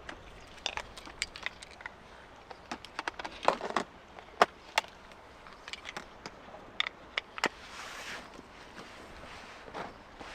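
A series of irregular sharp clicks and knocks, loudest about four seconds in, with a brief soft rustle near eight seconds.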